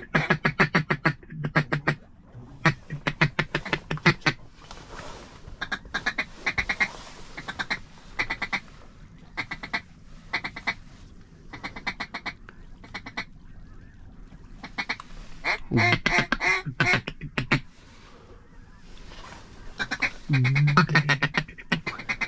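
Ducks quacking in fast runs of short quacks, several a second, that come in clusters with quieter gaps between.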